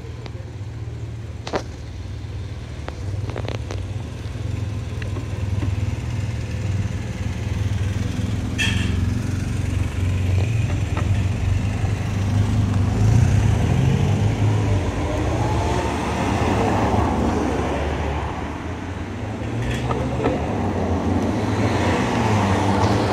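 Engines of police motorcycles and cars in a motorcade running and moving off, with a steady low hum that grows louder in the second half as the vehicles pass. A brief high tone sounds about nine seconds in.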